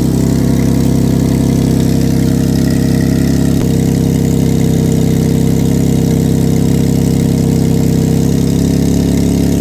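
Lexus SC300's 2JZ-GE inline-six idling steadily with a loud, rough, tractor-like exhaust note caused by a leaking exhaust gasket.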